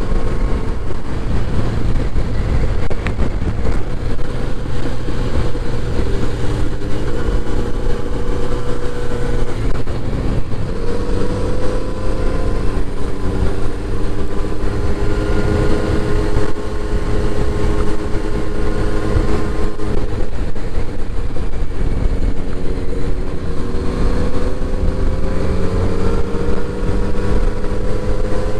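Kawasaki inline-four motorcycle engine and exhaust under way. The engine pitch climbs slowly and drops back twice, about ten seconds apart, as the revs rise and fall.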